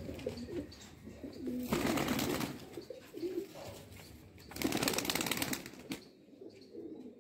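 Domestic pigeons cooing, with two bursts of wing-flapping, about 2 seconds and 5 seconds in.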